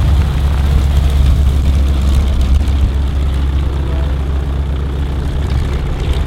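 North American Harvard's Pratt & Whitney R-1340 Wasp radial engine running at low power as the trainer taxis past, a deep, steady rumble that slowly fades as it moves away.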